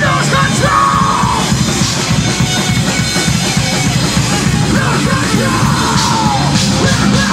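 A metal band playing live, with distorted guitars and dense drumming, and harsh yelled vocals near the start and again about five seconds in.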